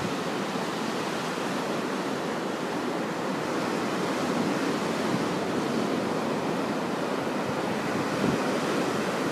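Rough monsoon sea surf breaking and washing over a boulder-lined shore, a steady roar of waves that swells slightly midway. Wind buffets the microphone now and then.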